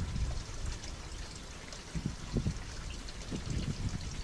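A man drinking beer from a pint glass, with a couple of faint gulps about two seconds in over a steady low rumble.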